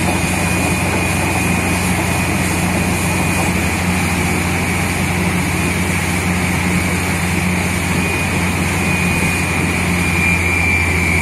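Truck-mounted borewell drilling rig running steadily: its engine hums, with a steady high whine, and the compressed air rushes as it blows water and cuttings up out of the bore.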